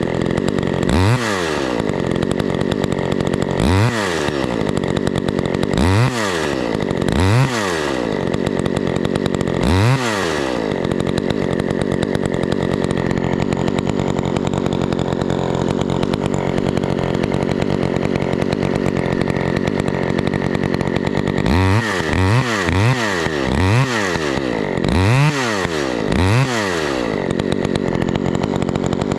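Two-stroke chainsaw running, its throttle revved up and back down again and again. It holds a steadier speed through the middle before a quick run of revs near the end.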